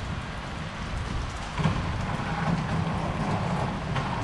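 Heavy rain falling on a clear plastic umbrella overhead and on wet pavement, a steady hiss. From about one and a half seconds in, a car on the wet road adds a low rumble.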